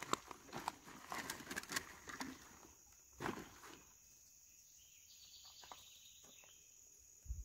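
Plastic bottle and ice rustling and clicking as a bottle is pushed down into a soft-sided cooler bag, with a short louder rustle about three seconds in as the bag is closed. Night insects keep up a steady high-pitched chirring throughout.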